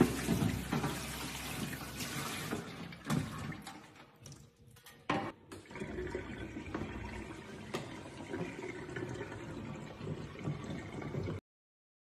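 Water running from a waterfall-style kitchen sink spout and splashing into the stainless steel basin, easing off about four seconds in, with a sharp knock just after. The flow then runs on until the sound cuts off suddenly near the end.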